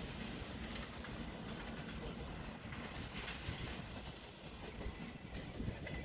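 Freight train of BCNA covered wagons rolling away along the track, its wheels making a steady rumble on the rails.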